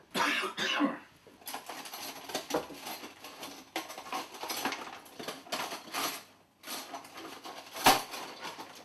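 Kitchen utensils and crockery clattering and scraping on a worktop as things are handled and rummaged through, with one sharp knock just before the end.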